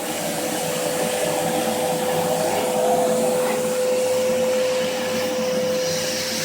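Vacuum cleaner running steadily: a rushing hiss with a steady whine held at one pitch.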